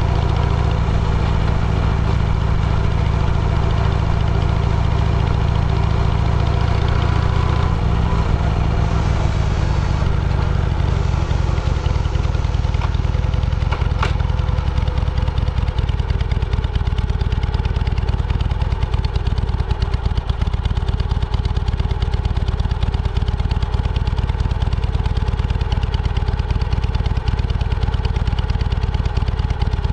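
Motor vehicle engine running steadily under a heavy low rumble, with no breaks.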